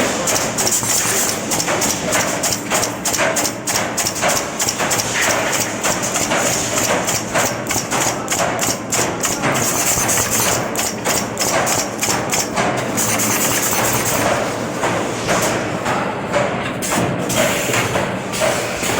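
Automatic wire-dropping welding machine running, making a quick run of knocks and thumps a few times a second over a high hiss that fades out about two-thirds of the way through.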